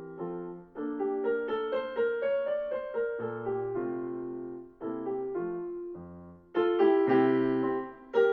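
Yamaha Clavinova digital piano playing a preset song, picked up by room microphones: chords under a melody line in short phrases, getting louder about two-thirds of the way through.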